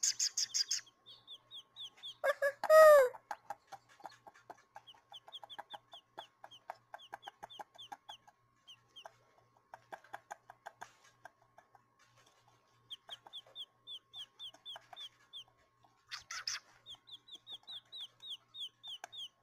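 Baby quail chicks peeping in runs of short, high, falling chirps, about five a second, over a steady clucking made by a person imitating a mother quail's call to keep the chicks calm. A louder, lower call sounds once, about three seconds in.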